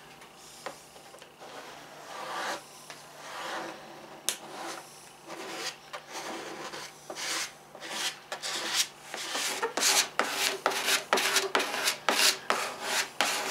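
Plastic scraper rubbing in repeated strokes over the paper transfer sheet of a wet-applied decal on fiberglass siding, working the decal down and pressing out water and bubbles. The strokes come slowly at first, then quicken to about two a second in the second half.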